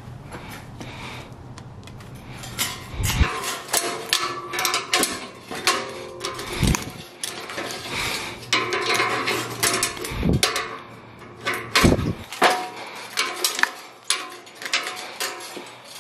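Black annealed tie wire being wrapped and twisted around rebar intersections with ironworker's pliers: a busy run of metallic clicks, scrapes and clinks with a few dull knocks, starting a few seconds in.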